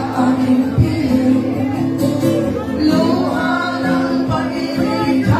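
Live acoustic performance: a woman singing into a microphone while strumming an acoustic guitar.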